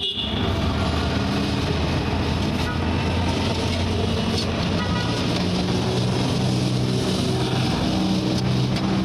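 Motor vehicle engine running with a steady low hum, over general street traffic noise.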